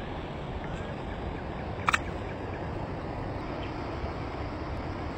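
Outdoor ambience: a steady low rumble with faint, scattered bird chirps, and one short, sharp double call or click about two seconds in.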